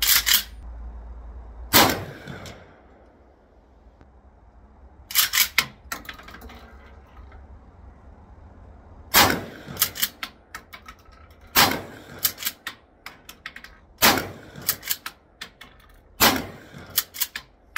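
Five 12-gauge slug shots from a pump-action shotgun, fired one at a time a couple of seconds apart. Each shot is followed by the sharp clack of the pump being worked to chamber the next round.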